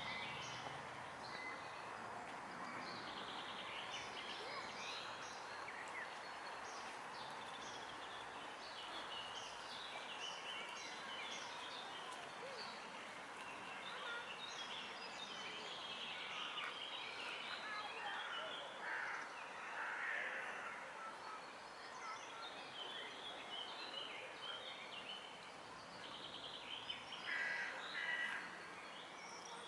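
Many small birds chirping and singing over a steady background noise, with a few louder, harsher calls a little over halfway through and again near the end.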